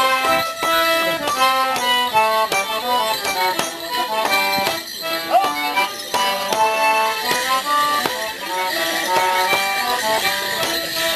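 Live traditional folk dance tune played for morris dancers: a brisk melody of held notes over a steady beat.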